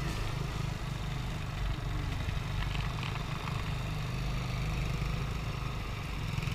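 Motor scooter engine running while riding over dirt, with wind rumbling on the microphone.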